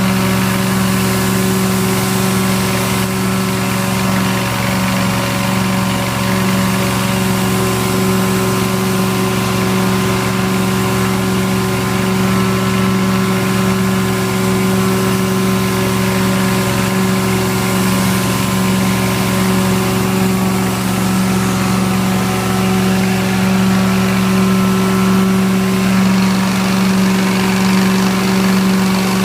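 MyTee T-Rex rotary carpet extractor running steadily during cleaning: a constant drone with a hissing rush over it, unchanging throughout.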